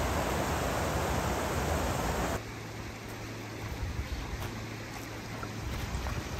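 Shallow, stony river running: a loud rush of water for about two seconds, then a sudden drop to a fainter, steady stream sound.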